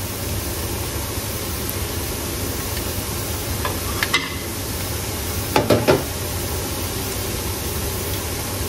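Vegetarian burger patties sizzling steadily as they fry in oil in a pan, browning on both sides. A utensil clicks and scrapes against the pan once about four seconds in, then several times a little later.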